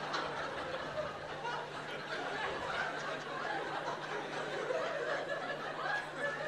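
An audience's laughter, down to scattered chuckles and low voices from the crowd, over a steady low hum.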